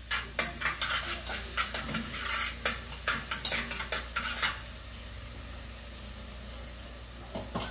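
A metal spoon clinking and scraping against a bowl and an aluminium pot as seasoning is stirred into hot lard, which sizzles: the first frying of the seasoning for rice. The clinking stops about four and a half seconds in, leaving a steady sizzle.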